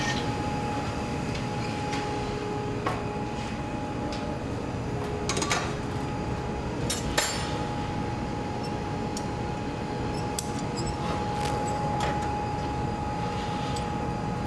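Steady rushing noise of a glassblowing studio's gas-fired glory hole and blowers running, with a faint steady hum. A few light clicks and clinks of tools come about three, five and seven seconds in.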